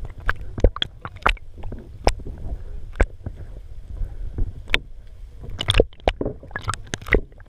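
Kayak on the sea: irregular splashes and knocks of the paddle and water against the hull, over a steady low rumble.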